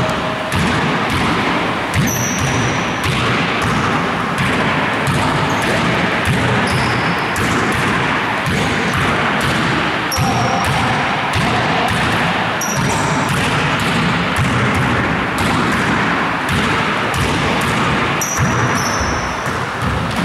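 Basketballs bouncing and being passed in quick succession on a court, a steady run of knocks with short high-pitched squeaks now and then.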